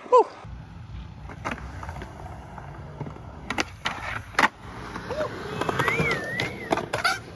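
Skateboards rolling on smooth concrete with a steady low rumble, broken by several sharp wooden clacks of tails popping and boards landing as tricks are done over ledges; one of the loudest clacks comes near the middle.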